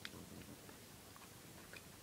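Near silence: room tone with a faint click at the start and a few scattered soft ticks.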